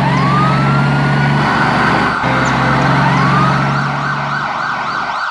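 Emergency-vehicle siren wailing: its tone rises and holds twice, then switches to a fast up-and-down yelp near the end, over a steady low hum.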